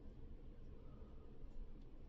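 Faint steady low hum of room tone, with no distinct handling sounds.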